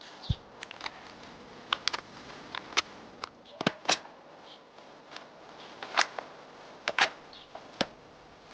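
Airsoft bolt-action sniper rifle being worked: an irregular series of sharp metallic clicks and clacks from the bolt and trigger, with the two loudest about six and seven seconds in.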